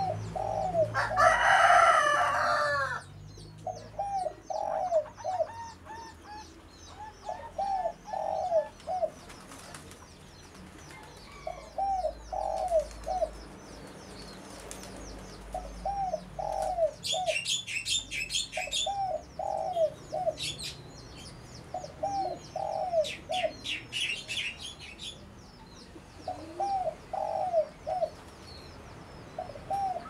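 Dove cooing over and over, a short phrase of three quick coos every few seconds. About a second in there is a louder, harsher call, and twice in the middle small birds twitter high and fast.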